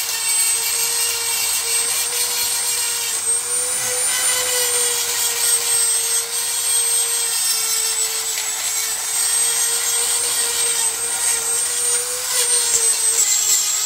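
Handheld electric power tool with a rotary cleaning brush scouring rust and grime off engine parts. It gives a steady motor whine with a hissing scrape, and the pitch dips and rises slightly as the load changes.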